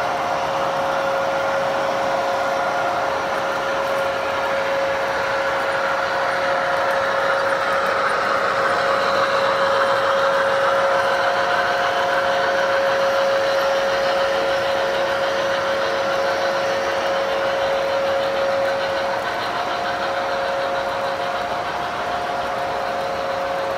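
Several model trains running together on a large layout: a steady rolling rumble of wheels on track with a constant motor whine.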